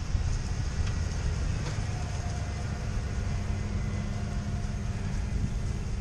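Pickup truck engine running steadily under load as it tows a pontoon boat on a trailer, a low rumble with a faint steady hum.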